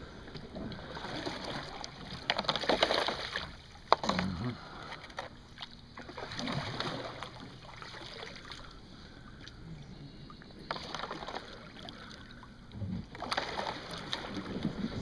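Kayak paddle strokes swishing through shallow creek water in irregular surges, with one sharp knock about four seconds in.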